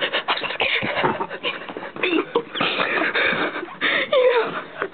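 Girls' voices close to the microphone, indistinct and mixed with laughter, with short knocks and rustles from the camera being handled.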